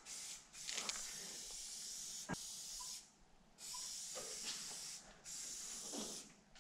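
Aerosol spray-paint can hissing as it sprays paint onto a concrete wall, in several long bursts of a second or more with short breaks between them, and one sharp click about two seconds in.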